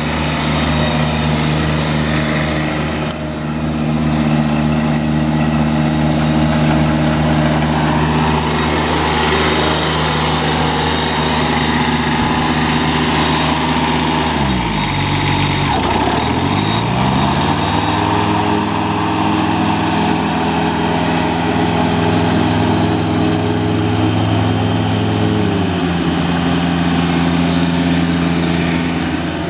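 Kubota ZD18 zero-turn mower's D722 three-cylinder diesel engine running steadily. About halfway through, its speed drops sharply and climbs back up. It then runs a little faster until it eases back down a few seconds before the end.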